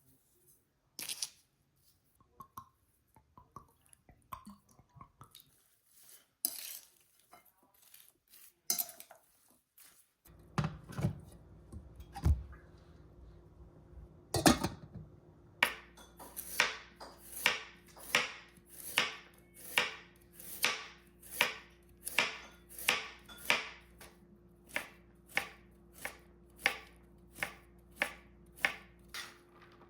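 Kitchen knife chopping on a cutting board: scattered light knocks and clicks at first, then, from about halfway in, a steady rhythm of about two cuts a second. A steady low hum runs under the chopping.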